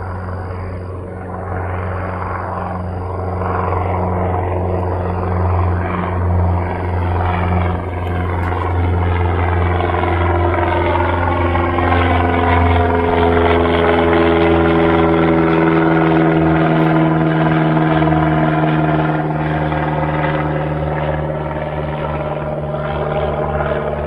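1981 Cessna 172 Skyhawk's four-cylinder Lycoming engine and propeller droning at climb power as the plane passes overhead. It grows louder toward the middle, and its pitch falls steadily as it moves away.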